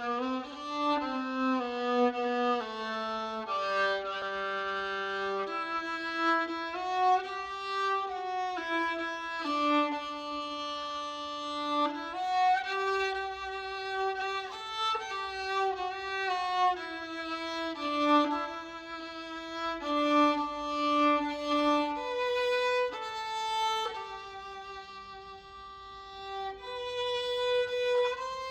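Solo violin playing a slow melody one note at a time, each note held for a second or two, with a softer passage near the end.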